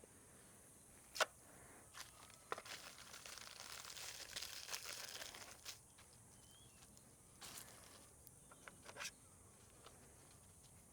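Hands handling small plastic parts and seeds at close range: a few sharp clicks, then about three seconds of soft crinkling and rustling, then more light clicks and taps.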